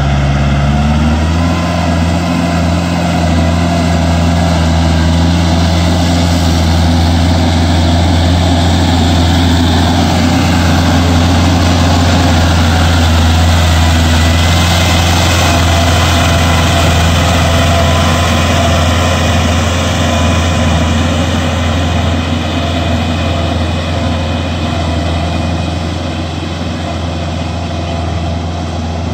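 Kubota L4508 tractor's diesel engine running steadily under load as it pulls a rotavator through a flooded paddy field. It grows louder as the tractor passes close by, then fades a little near the end as it moves away.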